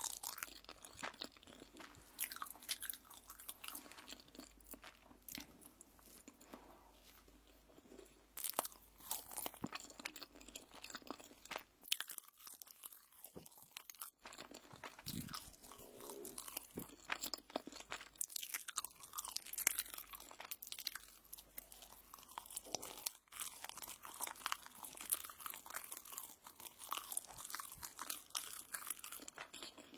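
Close-miked ASMR eating sounds: crunchy toast being bitten and chewed, with irregular crisp crunches and a short lull about twelve seconds in.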